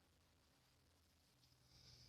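Near silence: faint background hiss, with a slight faint high sound swelling near the end.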